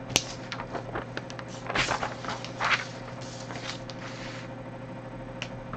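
Sheets of drawing paper being handled and slid across a tabletop, with a sharp click just after the start, scattered light taps, and two louder rustles in the middle.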